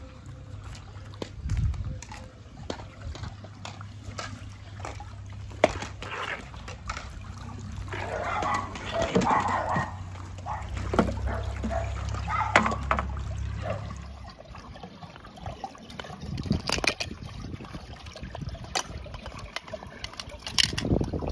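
Pool water sloshing and splashing as a skimmer net is swept through it to scoop up a floating plastic capsule, under a low steady hum that stops about two-thirds of the way through. Scattered sharp plastic clicks follow as the capsule is handled and pulled open.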